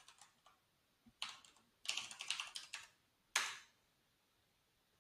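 Computer keyboard typing in short quick bursts of keystrokes, with one louder key stroke about three and a half seconds in.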